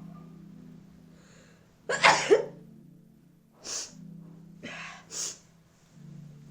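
A woman sneezes loudly once about two seconds in, a sneeze brought on on purpose. Three shorter, quieter bursts of breath follow.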